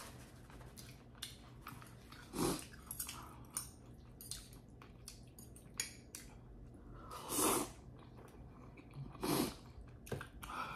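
Fettuccine noodles slurped three times in short, noisy bursts, between quiet chewing and light clicks of chopsticks against a ceramic bowl.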